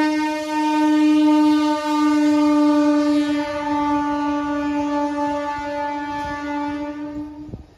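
An Indian Railways MEMU electric train's horn held in one long, steady blast over the rumble of the passing coaches, cutting off suddenly near the end.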